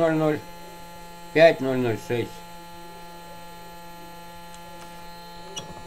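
Small electric motor salvaged from a child's toy car running steadily on a 12-volt rectifier supply, giving a constant electrical hum. A short click sounds near the end.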